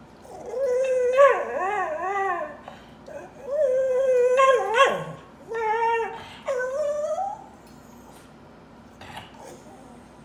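Cocker spaniel crying: four drawn-out, wavering howl-like whines over the first seven or so seconds, the pitch swinging up and down within each, then it falls quiet.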